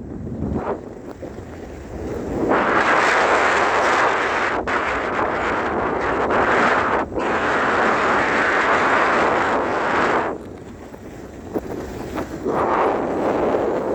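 Wind buffeting the microphone in loud gusts. It eases off about ten seconds in and picks up again near the end.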